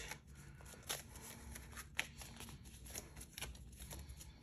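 Paper banknotes being handled and squared up by hand: soft rustling with a few sharp flicks of the bills.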